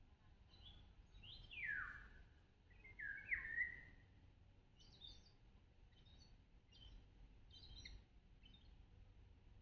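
Birds calling: two louder calls sliding down in pitch in the first few seconds, then a scatter of short, high chirps.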